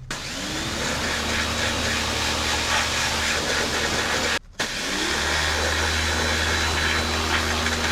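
Electric pressure washer spraying dirt out of an ATV brake caliper: the motor spins up with a rising whine under the hiss of the water jet, cuts out briefly about halfway when the trigger is let go, then runs again.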